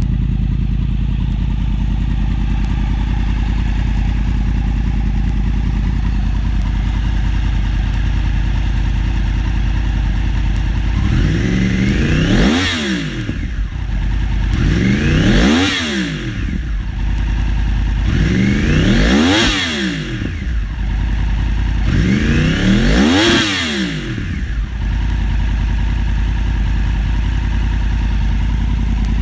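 2012 Yamaha R1's crossplane inline-four engine idling through a GYTR aftermarket exhaust, then blipped four times, each rev rising quickly and dropping back to idle, a few seconds apart, before it settles back into a steady idle.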